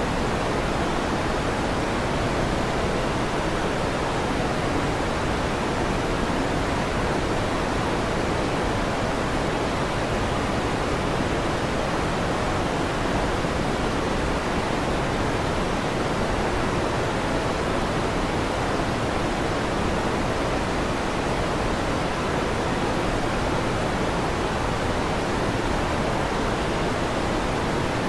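An electric fan running with a steady, even whooshing noise that does not change. No thunderclaps.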